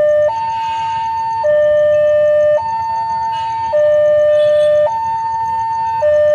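Two-tone electronic warning alarm sounding for an approaching train, alternating steadily between a high and a low note, each held about a second.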